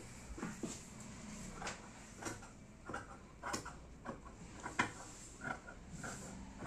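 Short, irregular rustles and scuffs, about one a second, as a large red ball-gown skirt is spread out and smoothed by hand on the floor.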